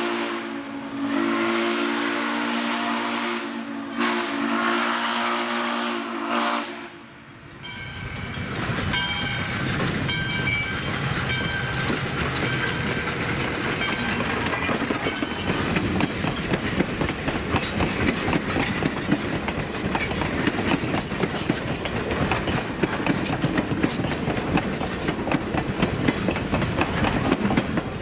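Valley Railroad 40, a 2-8-2 Mikado steam locomotive, blowing its Texas & Pacific three-chime steam whistle in long blasts that end about seven seconds in. Then the locomotive and its train run past close by with a steady rumble and wheels clicking over the rail joints.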